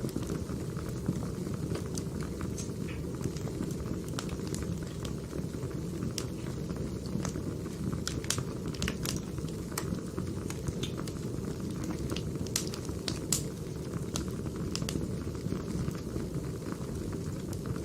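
Burning firewood: a steady low rumble of the fire with irregular sharp crackles and pops from the logs.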